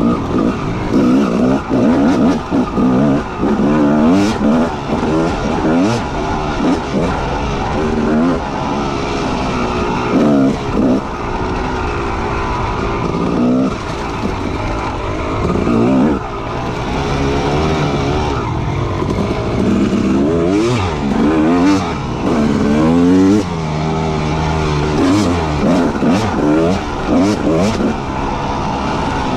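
Motorcycle engine under way, revving up and dropping back again and again as it accelerates and shifts, with the pitch climbing and falling every few seconds.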